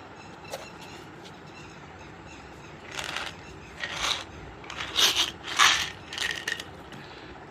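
Multivitamin packaging being handled: a run of short crinkling, scraping bursts from about three seconds in, loudest around five seconds, then stopping near the end.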